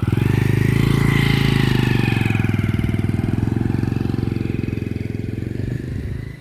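Motorcycle engine running loud and close, swelling in suddenly and dropping away near the end, with a higher tone that rises and then falls.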